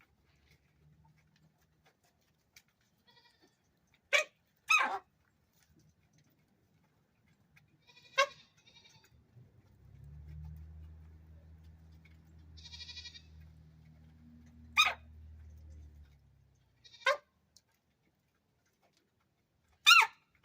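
Chickens sneezing: about six short, sharp sneezes spread a few seconds apart, which the owner puts down to dusty feed poured from the bottom of a bag.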